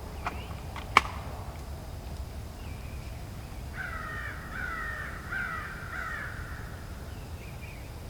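A crow cawing about four times in quick succession, over a steady low rumble of outdoor background noise. A single sharp click about a second in is the loudest sound.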